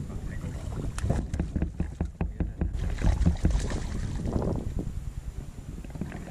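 A hooked trout splashing and thrashing at the water's surface beside the boat as it is brought to the net, in a run of sharp splashes, with wind buffeting the microphone.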